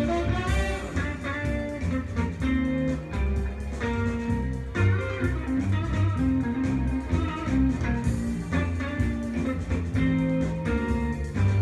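A recorded music track with guitar over a strong bass line, played back through a pair of Graham Audio Chartwell LS6 two-way bookshelf speakers set flat, with no treble boost.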